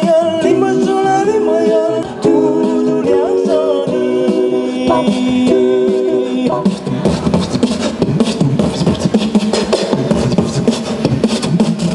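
A cappella vocal music: voices singing held chords over a beatboxed rhythm, changing to a busier, more rhythmic section about six and a half seconds in.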